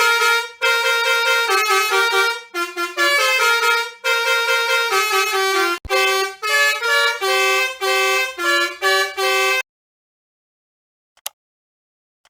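Vehicle horn sample pitch-shifted to play a tune: a quick rhythmic run of honks at changing pitches that stops abruptly nearly ten seconds in. A couple of faint clicks follow in the quiet.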